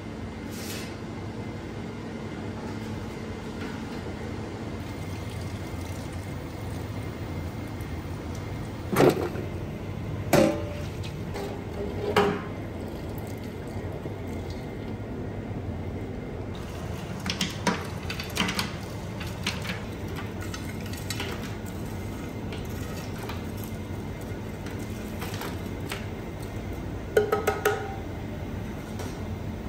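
Stainless steel pots and bowls clanking against each other several times over a steady low hum, the loudest knocks about nine and ten seconds in. Near the end, three quick knocks leave the metal ringing briefly.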